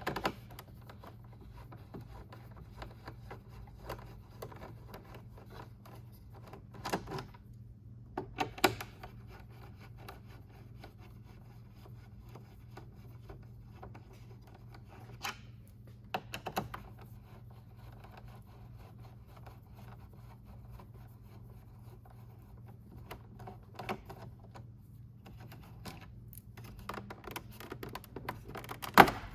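A T25 Torx screwdriver backing screws out of a motorcycle's plastic fairing: scattered clicks, scrapes and rubbing of the tool against screws and plastic panels, with a sharp click near the end. A steady low hum runs underneath.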